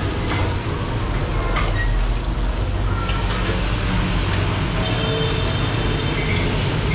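Stir-frying cabbage, egg and greens in a steel wok over a gas burner: a steady low roar with sizzling, and a metal ladle scraping and knocking against the wok a few times.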